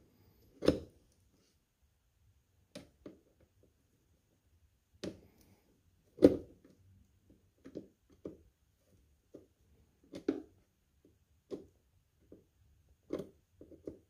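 Flathead screwdriver turning the screw of a metal hose clamp on an ATV air filter: a string of irregular clicks and knocks as the tool is turned and reset, two of them louder, about a second in and about six seconds in.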